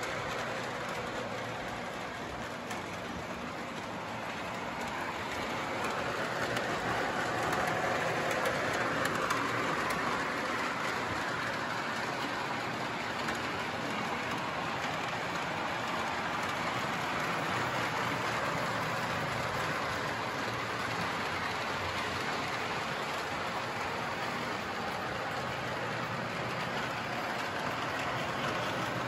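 Model train running on its track through a Christmas tree display: a steady rolling, clattering whir that grows louder about five seconds in and eases back a little after about twelve seconds.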